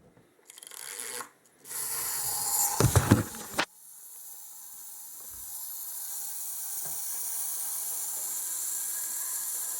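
Plastic toy mechanism on a Thunderbird 5 model being pulled by hand: a rough, rattling ratchet-like clatter with a few knocks, lasting about a second and a half and stopping suddenly. It is followed by a steady high hiss that slowly grows louder.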